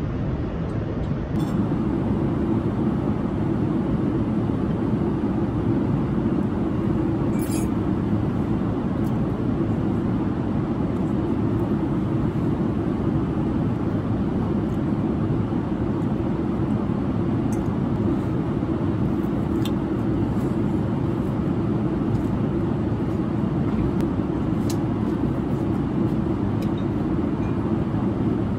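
Steady low rumble of a Boeing 787-9 airliner cabin in cruise flight: airflow and engine noise with no change in pitch or level. A few faint clinks of cutlery against the plate sound through it.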